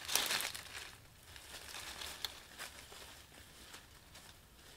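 Bare feet walking through tall grass and undergrowth, crunching dry leaves and brushing plant stems; loudest in the first second, then fainter, scattered rustles.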